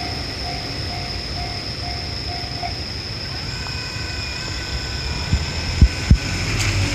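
Japanese railroad crossing warning bell ringing in a steady 'kan-kan' about twice a second, then stopping about a third of the way in. A low steady rumble with a faint whine follows, and a few sharp thumps come near the end.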